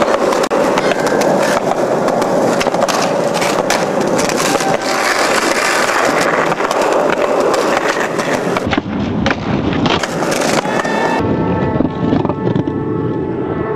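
Skateboard wheels rolling loudly over concrete close to the microphone, with repeated sharp clacks of the board hitting the ground.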